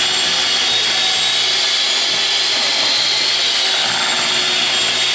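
Vitek electric hand mixer running steadily with a high whine, its beaters mixing flour into cake batter.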